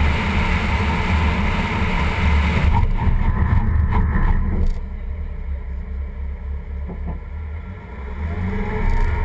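Wind buffeting and tyre-road noise from a BMW at speed, picked up by a camera mounted low on the front fender. A few seconds in the rushing dies away as the car brakes hard in an ABS stop, and by about five seconds in it is quieter. Near the end the noise builds again as the car moves off.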